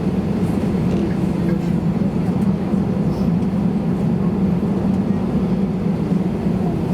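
Steady drone of an Airbus A320-214 airliner's CFM56 turbofan engines and airflow heard inside the passenger cabin, even in level, with a low hum.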